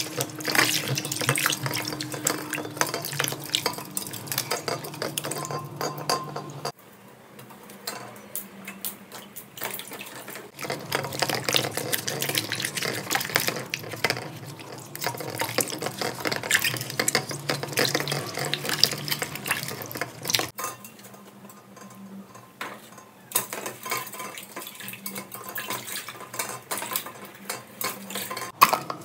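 Hands washing green bananas and a root tuber in water in a metal pot: water sloshing and splashing, with the produce rubbing and knocking against the pot in irregular clicks.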